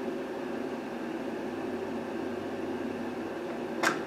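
Hot stapler (plastic-welding staple gun) buzzing steadily as it heats a staple and melts it into a cracked plastic bumper cover. A single sharp click comes near the end.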